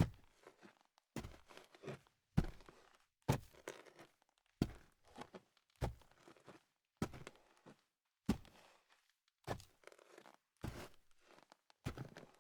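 Slow footsteps, about one step every 1.2 seconds, each a firm footfall followed by a short scuff.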